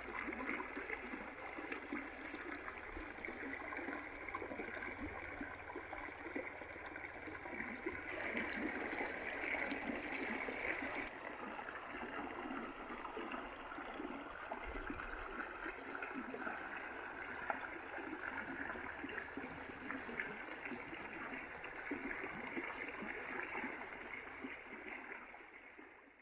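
The Jemez River's shallow water rushing steadily over rocks in a riffle, fading out near the end.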